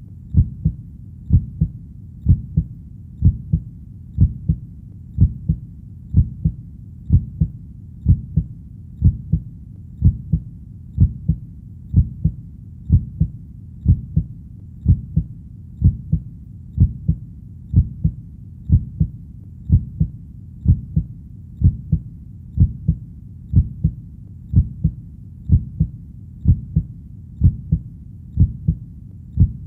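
Steady heartbeat, a low double thump (lub-dub) repeating about once a second, roughly 60 beats a minute, over a faint steady low rumble between beats.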